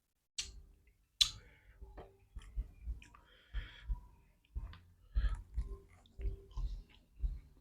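Close-up chewing and mouth sounds of someone eating fried chicken with rice, in irregular short thuds and crackles, with two sharp clicks near the start.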